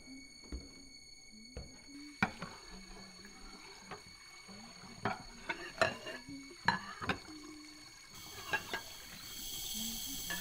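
Scattered light clicks and knocks, like small hard objects or glass being handled, then a steady hiss that starts about eight seconds in and lasts about three seconds.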